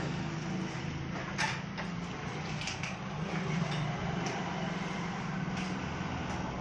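Steady low machine hum with several short metallic knocks and clinks as the flour-mill wheel is handled on its shaft and bearing in a metal lathe.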